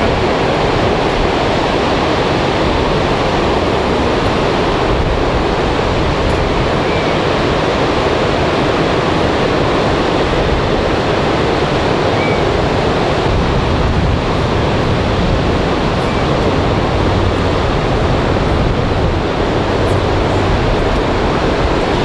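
Ocean surf making a steady, continuous rush, with no separate wave breaks standing out.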